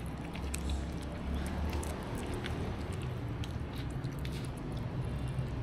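Cats chewing and biting chunks of meat off a plastic plate right at the microphone: a steady run of small, sharp, wet clicks, over a low steady hum.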